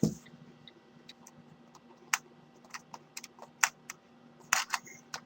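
Scattered sharp clicks and taps at an uneven pace, a few of them louder, with a low thump right at the start, over a steady low hum.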